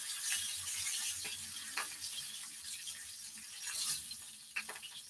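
Tuna steak frying in a grill pan, a steady sizzling hiss, with a few clicks from tongs against the pan.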